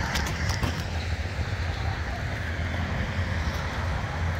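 Steady low vehicle rumble under a haze of wind noise, with a few sharp clicks in the first second.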